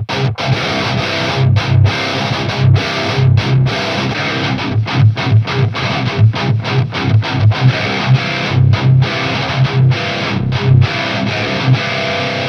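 High-gain distorted electric guitar playing a heavy rhythm riff on its own, without a backing track: tight palm-muted chugs with short hard stops at first, then a denser run of chugs and accents. It is played through a Peavey Invective 120 tube head and then a Randall Diavlo RD100, both through the same cabinet.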